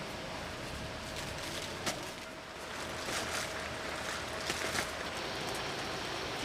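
Heavy rain falling steadily, with scattered individual drops and drips landing among the hiss.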